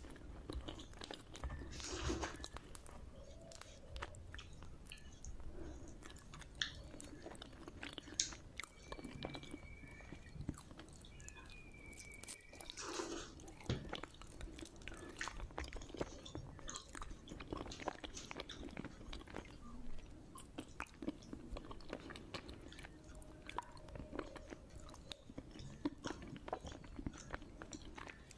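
A person chewing khichdi with many small wet mouth clicks, while her fingers mix and scoop the soft rice and lentils on a steel plate.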